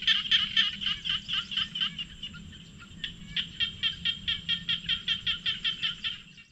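Rapid, evenly repeated high animal calls, about six a second, over a thin steady high whine. The calls thin out two to three seconds in, pick up again, then fade out near the end.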